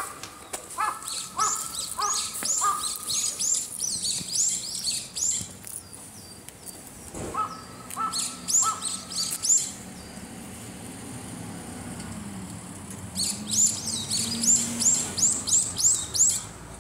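Wild birds singing: three spells of rapid, high, curving notes, with a lower repeated note in short series at the start and again about eight seconds in.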